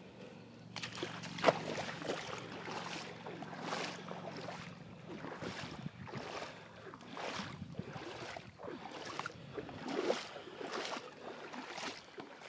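Footsteps wading through shallow river water: a run of sloshing splashes about once a second, starting about a second in.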